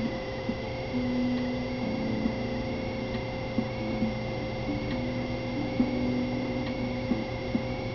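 Television sound picked up off the set: a steady electrical hum with a thin high whine throughout, and faint low held notes underneath that change pitch every second or so.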